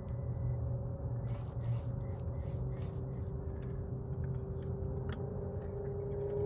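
Traxxas TRX-4M mini RC crawler's electric motor and gearing whining steadily as it crawls over dry grass, with a low rumble underneath and a few light crackles. The whine rises slightly in pitch near the end as the truck speeds up.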